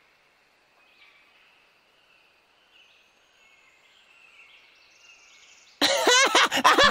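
Faint forest ambience with short, repeated chirping. About a second before the end, a loud voice suddenly breaks in.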